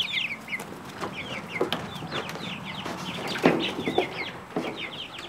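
Young chickens cheeping over and over in a tub: many short, high calls, with a few knocks.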